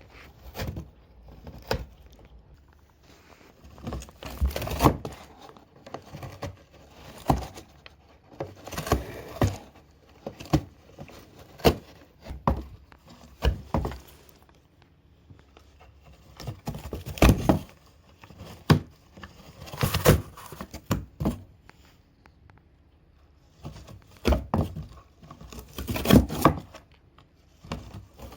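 A cat tearing at cardboard with its teeth and claws: irregular bursts of ripping and scraping, with short pauses between them.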